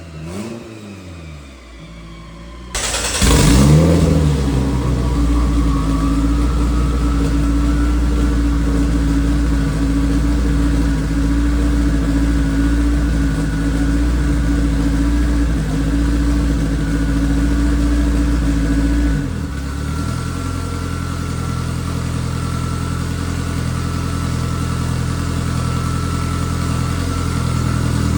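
Race car engine on a chassis dyno: it winds down, is revved sharply about three seconds in and held at a steady high speed, then drops to a lower steady speed a few seconds before the end.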